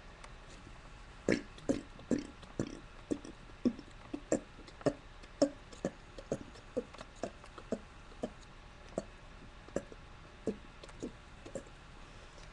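A person's voluntary hiccup burps: a run of about twenty short, sharp burps at roughly two a second, coming further apart near the end.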